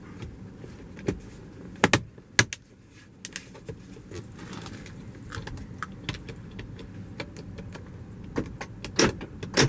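Sharp plastic clicks from a Toyota RAV4 door's window-switch panel being handled: a pair about two seconds in and another pair near the end.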